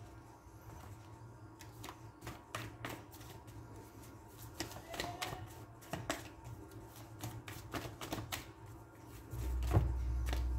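A deck of tarot cards being shuffled by hand: a quick run of light, sharp card clicks and snaps, then a low rumble near the end.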